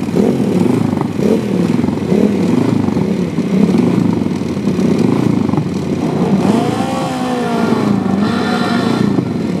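Ducati Pantah TT600 replica's V-twin engine running at idle with the throttle blipped, its pitch rising and falling repeatedly, with a bigger rev about two-thirds of the way through.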